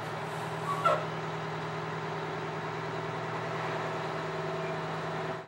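Fire truck engine running steadily, with a brief squeak about a second in.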